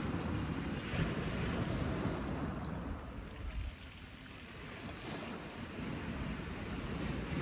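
Wind buffeting the microphone over surf breaking on the beach, easing for a couple of seconds around the middle.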